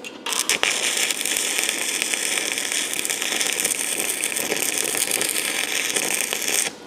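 Stick (arc) welding on a steel plate: the electrode strikes with a few sharp crackles, then burns with a steady crackle for about six seconds before the arc is broken off suddenly.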